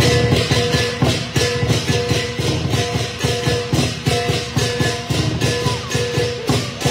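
Lion dance percussion: a big drum beaten in a fast, even rhythm together with crashing cymbals and a ringing gong.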